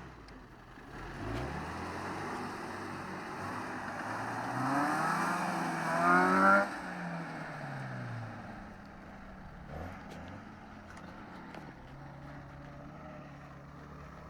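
Off-road 4x4 vehicle's engine revving up under load, its pitch climbing steadily to a loud peak about six and a half seconds in. It then drops away over a couple of seconds and settles to a steady idle.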